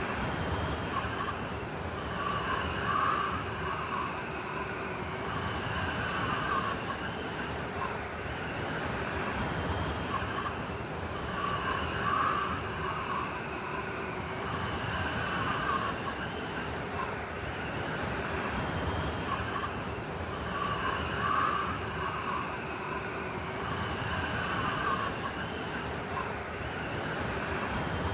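Blizzard wind blowing steadily with a wavering whistle, swelling in gusts roughly every nine seconds.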